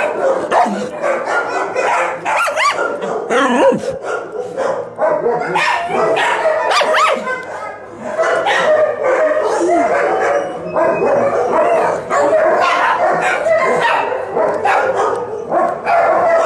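Dogs barking and yipping in quick succession with barely a break, loud throughout.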